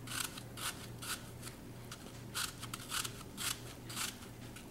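Small kitchen knife cutting through a crisp peeled Granny Smith apple held in the hand, a short crunchy cut about twice a second as it is chopped into tiny pieces. A faint steady low hum underneath.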